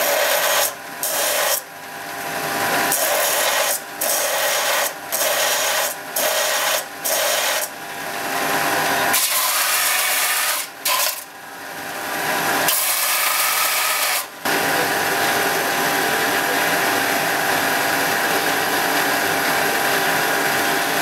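Benchtop belt sander running, with a small steel part ground against the belt. In the first half the grinding breaks off briefly about once a second; from about halfway it runs steadily, with one short break.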